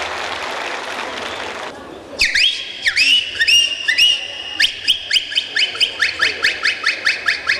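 Applause dies away about two seconds in, followed by bird-like whistled calls: a few rising whistles that level off into held notes, then a fast run of short rising chirps, about four a second.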